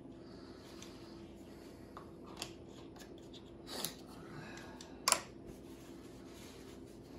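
A few short, sharp clicks and snips of small objects being handled, the loudest about five seconds in, over a steady low hum.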